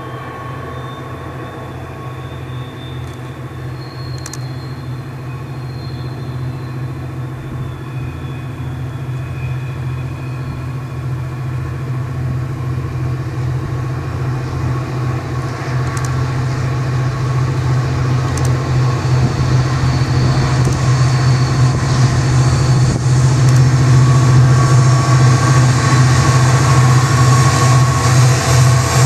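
Diesel locomotive's engine running with a steady low hum, growing steadily louder as the train approaches, loudest near the end.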